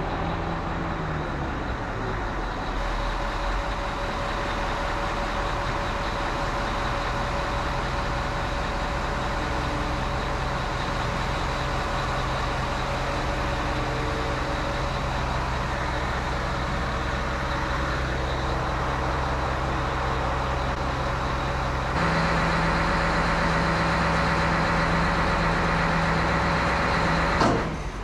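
Large all-terrain mobile crane's diesel engine running steadily; near the end its pitch steps up and it grows louder. A single sharp knock comes just before the end.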